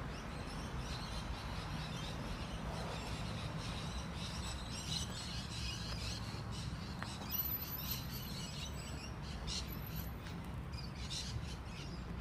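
Small birds chirping in short repeated calls, busiest in the second half, over a steady low background rumble.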